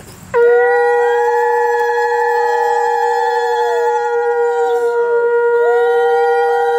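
Conch shells (shankha) blown together in one long held call, starting about half a second in: one holds a steady pitch while another's pitch bends slowly up and down.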